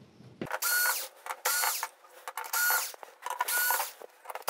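Cordless electric screwdriver backing out board screws in about four short bursts, each a half-second motor whine that stops abruptly, with small clicks between.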